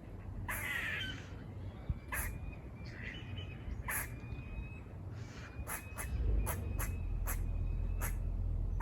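Squirrel giving short, sharp barking calls at irregular intervals, coming quicker in the second half, with a harsher, noisier call about half a second in. A thin bird whistle runs faintly alongside.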